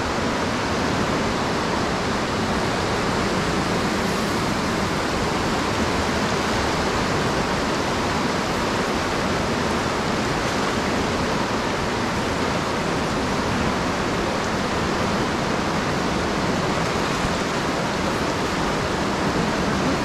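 Steady rush of a waterfall and fast-flowing river: an even, unbroken hiss of white water that does not change.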